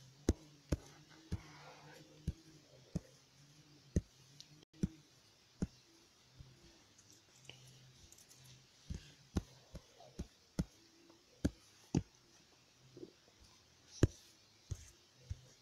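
Irregular sharp taps on a tablet's touchscreen, roughly one a second, some louder than others.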